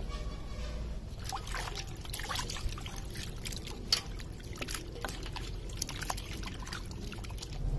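Hands washing cut squid pieces in a stainless steel bowl of water: irregular splashing and sloshing that starts about a second in.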